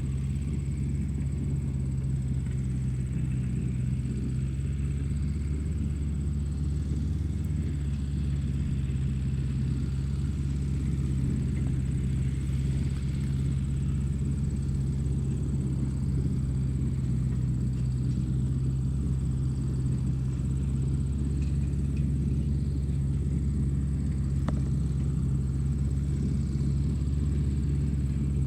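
Tractor engine running at a steady speed: a constant low rumble that does not rise or fall, with a faint steady high whine over it.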